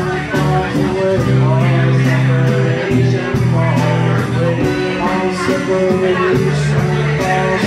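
Live band playing a song, with acoustic guitar and a drum kit keeping a steady beat of about two hits a second under sustained low notes.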